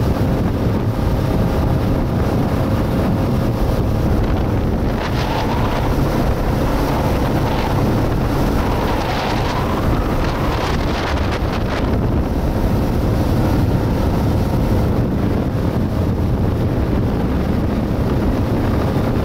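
Wind buffeting the microphone on a speedboat under way, over the steady drone of its engine and the rush of the wake. From about five to twelve seconds in, sharper hissing splashes of spray come and go.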